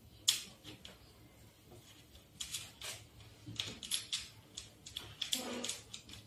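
Small metal clicks and light rattles of hardware being fitted by hand at a bicycle's front fork end, coming in scattered clusters.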